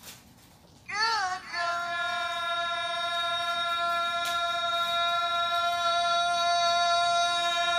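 Male Quran reciter's voice through a microphone and PA: about a second in, a short run of quick ornamental pitch turns, then one long high note held at a steady pitch for about six seconds, a display of breath control in tilawah recitation.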